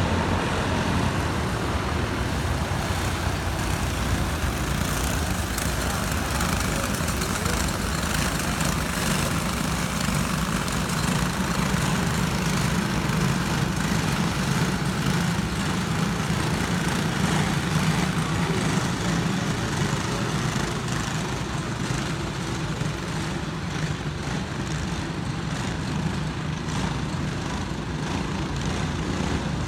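Racing karts' small engines running continuously as the field laps the track, louder for a stretch in the middle as they come nearer.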